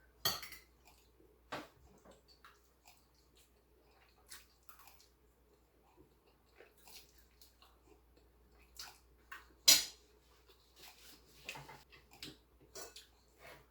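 Person eating spicy instant ramen: quiet chewing and wet mouth clicks scattered through, with two sharper, louder clicks, one right at the start and one near ten seconds in.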